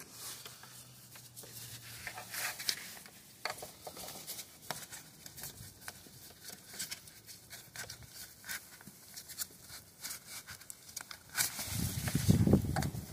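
Gloved hands pushing an electrical cable under the hood edge: scattered rustling, scraping and small plastic clicks. Near the end, a louder, muffled stretch of close rubbing.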